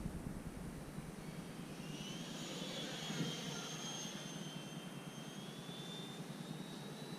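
High-pitched whine of a Freewing L-39 Albatros RC jet's 80mm electric ducted fan in flight, coming in about two seconds in, loudest around three seconds, its pitch dipping and then climbing slowly.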